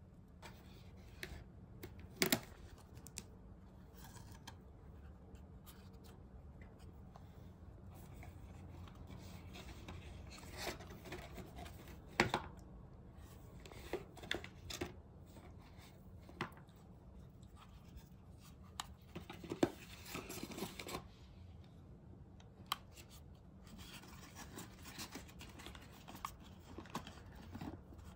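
Faint handling sounds of a Canon PowerShot V10 compact vlog camera being turned over in the hands and its fold-out stand opened: scattered soft clicks and knocks, with light rustling of packing tissue paper.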